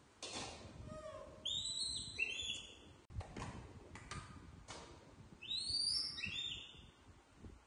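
Young macaque giving high-pitched squeaky calls in two bouts of several short notes, about a second and a half in and again around six seconds in. A few light clicks come in between.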